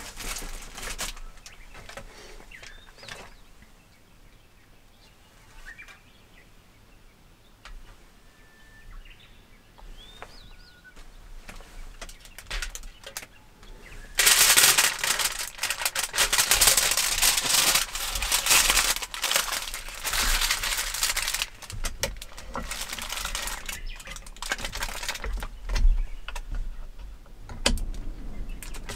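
Aluminium foil crinkling loudly for several seconds as it is folded around a sandwich, starting about halfway through. It then goes on in lighter rustles, with a few knocks near the end as the hot sandwich maker is handled.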